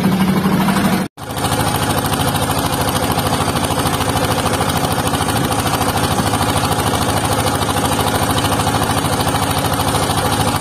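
Wooden fishing boat's engine running steadily under way, with a rapid even beat; it cuts out for an instant about a second in.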